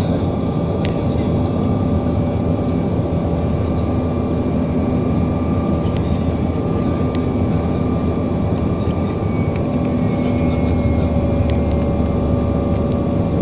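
Airliner cabin noise: the aircraft's engines and airflow making a loud, steady drone with a few steady tones on top, heard from inside the cabin.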